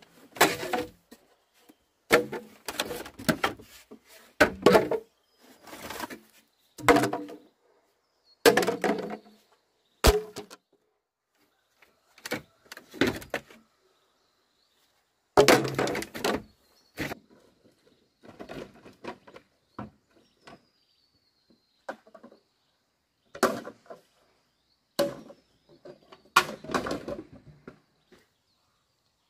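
A series of dull thuds and knocks, irregularly spaced a second or two apart with short pauses, like a hand tool striking over and over.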